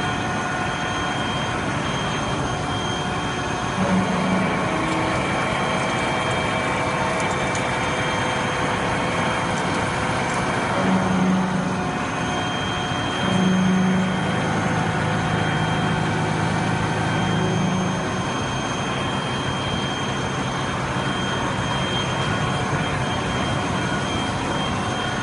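Colgar CNC machine tool running through a machining cut: a steady mechanical noise with a constant high whine. A deeper hum swells briefly about four and eleven seconds in, then holds for several seconds from around the middle.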